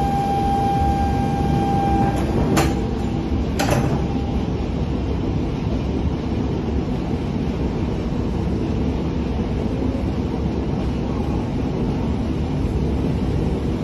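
Door of an E4 series Shinkansen closing: a steady beep for about two seconds, then two knocks as the sliding door shuts, followed by the steady low rumble of the train.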